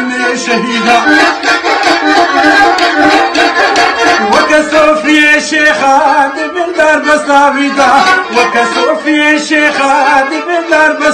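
A man singing a Kurdish folk song in a full, wavering voice, accompanied by a bowed folk fiddle.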